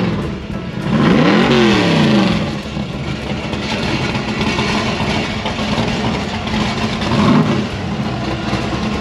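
Car engine running and revved up and back down, a large rev about a second in and a shorter one near the end, with music underneath.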